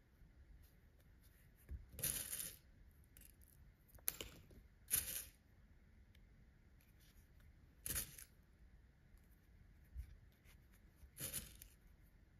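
Handling of yarn and stuffed crochet pieces: five short, faint rustling scrapes, spaced a few seconds apart, as the pieces are fixed in place to be sewn together.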